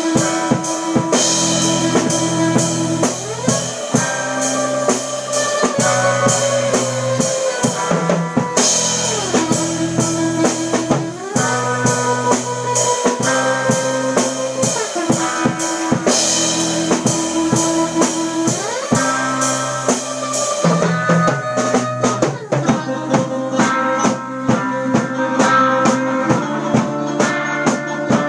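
A live band of electric guitars and a drum kit playing an instrumental surf-rock tune: a repeating guitar riff with sliding notes over a steady drum beat. About twenty seconds in, the part changes.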